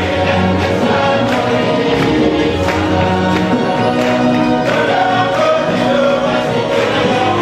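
Mooré-language church choir singing together, holding long notes over a regular percussive beat.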